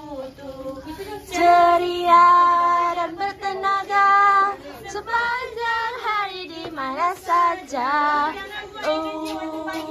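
Young women singing together, with long held notes and sliding pitch.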